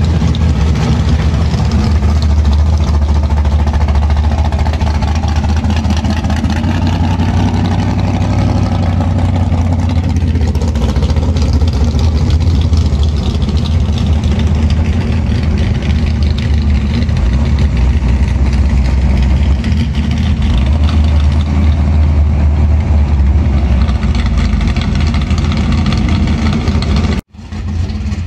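Car engine running at idle, steady and low-pitched, cutting out for an instant near the end.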